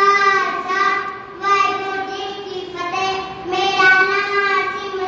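A young child singing in a high voice, in long, nearly level held notes with short breaks between phrases.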